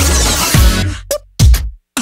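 Electronic dance music with drum-machine beats. A sustained bass and synth layer fades away about a second in, then a few hard drum hits with deep bass stop and start around brief moments of silence.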